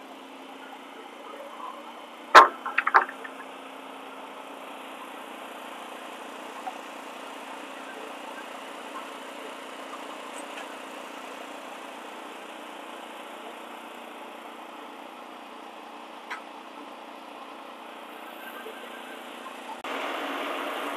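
An engine running steadily. About two and a half seconds in there are two or three sharp knocks. Near the end the engine is louder, where the Wood-Mizer edger's engine is running close by.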